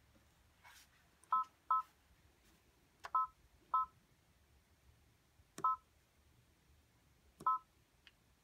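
Brother PR-1000e embroidery machine's touchscreen beeping as its on-screen keys are tapped: six short two-tone beeps at uneven intervals, the first four in two quick pairs.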